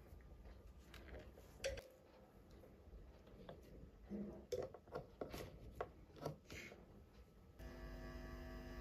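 Faint clicks and knocks of a metal XLR cable plug being handled and pushed into the amplifier input board's XLR jack. Faint music starts near the end.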